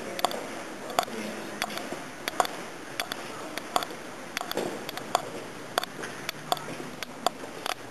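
Footsteps on a stone floor inside a granite chamber, a sharp step about every two-thirds of a second.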